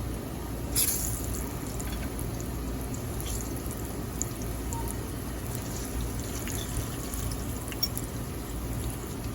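Plantain slices frying in hot oil, a steady sizzle with scattered small crackles and one louder crackle about a second in.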